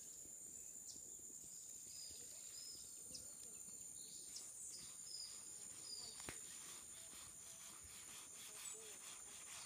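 Faint outdoor ambience: a steady, high-pitched insect drone, with short bird chirps now and then.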